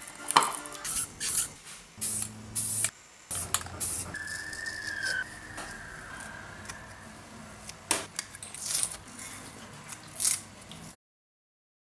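Hand-handling noises from a plastic GoPro housing: masking tape being pressed on and peeled off, and plastic parts clicking and scraping as they are fitted together, in short clips that cut abruptly. A brief high squeal comes about four seconds in, and about a second of dead silence falls near the end.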